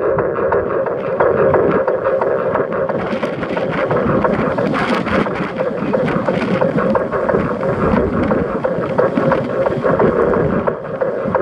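Steady wind rushing over the microphone of a camera mounted on the roof of a moving car, over the car's road noise.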